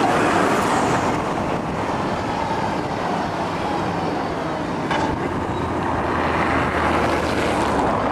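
STIB T2000 low-floor tram passing close by and rolling away along street track: a steady rumbling running noise from its wheels and running gear, with one short knock about five seconds in.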